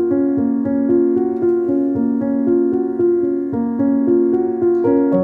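Background music: a keyboard tune of piano-like notes, changing about twice a second at an even level.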